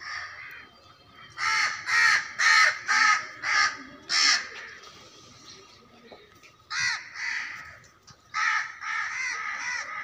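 Crows cawing: a quick run of about six harsh caws in the first half, then one more caw and a further cluster of calls in the second half.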